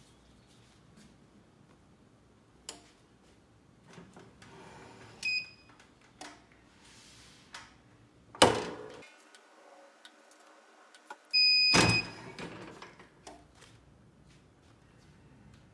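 Clamshell heat press in use: a short electronic beep, then the press lid clamped shut with a loud thunk about halfway through. A few seconds later the press beeps again, louder and longer, as its timer runs out, followed at once by the clunk of the lid being released, with light paper-and-fabric handling noises around it.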